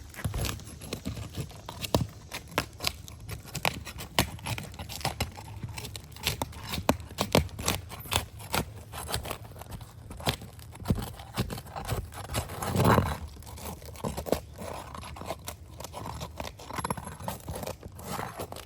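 Work on brittle, wind-damaged asphalt roof shingles: many sharp clicks and snaps with scraping and tearing as a shingle is pried and worked loose, with a louder scrape or tear near the middle.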